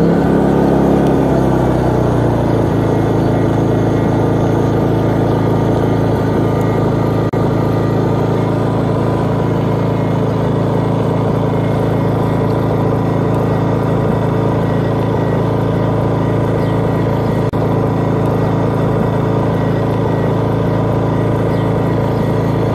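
DeWalt DXGNI2200 2200-watt inverter generator running steadily. Its engine note shifts and settles about two seconds in, then holds an even pitch.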